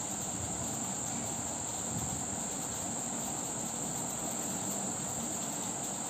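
A steady high-pitched whine over a low, even background hiss.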